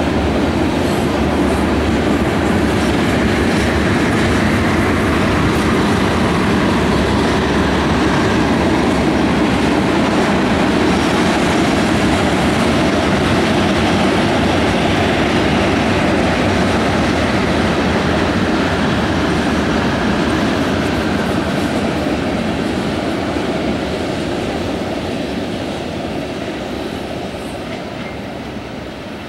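CSX freight train of tank cars rolling past, a steady rumble and rattle of wheels on rail joints, growing fainter over the last several seconds.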